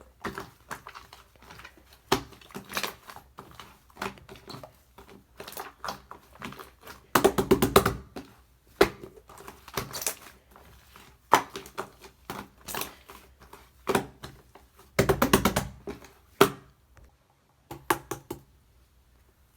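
Slime being squished and worked by hand, giving repeated bursts of sharp crackling clicks and pops from trapped air. The busiest clusters come about seven and fifteen seconds in.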